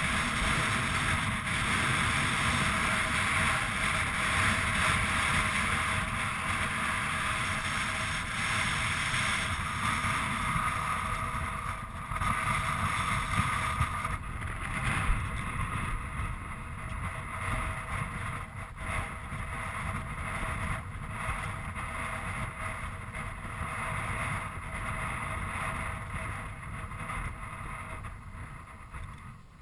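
Wind buffeting the microphone as a steady rushing, stronger at first and easing a little after about twelve seconds, with a couple of brief knocks.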